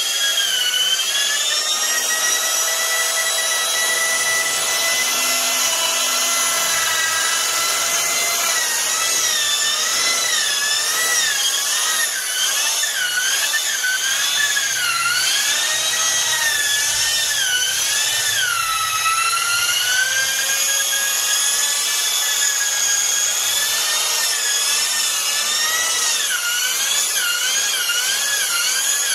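Corded electric drill with a paddle mixer stirring thinset tile mortar in a plastic bucket. The motor's whine holds steady in loudness but wavers up and down in pitch as the paddle works through the mortar.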